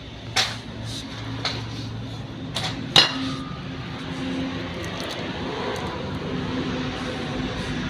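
A few sharp metal clinks and knocks, the loudest about three seconds in, over the steady hum of a running engine.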